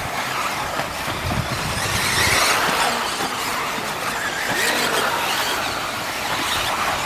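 4WD electric RC buggies with 13.5-turn stock brushless motors racing: high motor whine rising and falling in pitch as the cars accelerate and slow, over a steady hiss.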